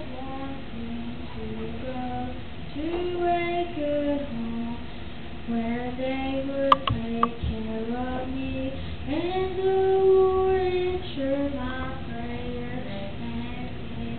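A young girl singing a song solo into a handheld microphone, holding long notes. Two or three sharp clicks come about seven seconds in.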